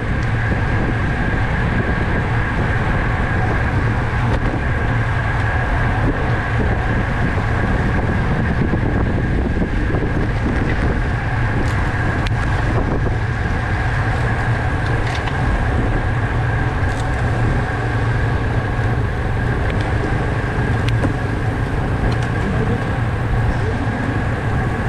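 Steady wind rush over a bike-mounted camera microphone, with the running hum of a road bicycle ridden at race speed.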